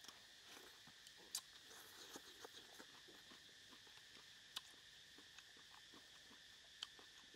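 Faint eating sounds: quiet chewing and light clicks of wooden chopsticks picking food off the plate, with three sharper clicks louder than the rest. Underneath runs a faint steady high-pitched drone.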